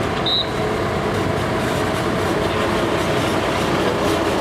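A large emergency vehicle's diesel engine running close by as a steady, heavy rumble. A short high beep sounds about a third of a second in.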